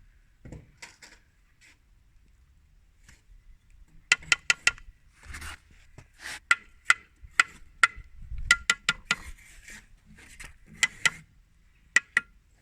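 Hard objects clinking together in quick runs of two to four sharp strikes, each with a short ringing tone, repeated several times.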